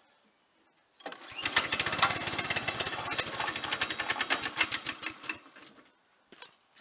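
Go-kart's small single-cylinder engine starts about a second in, runs with a rapid firing beat for about four seconds, then fades out and dies. This fits the engine's known trouble staying running.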